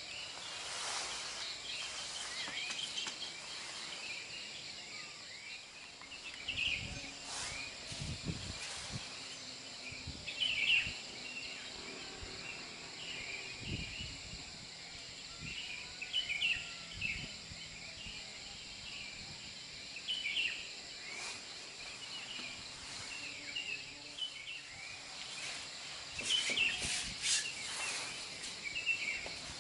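Songbirds chirping over and over in the open air, over a steady high-pitched whine. A few dull low thumps come in the first half.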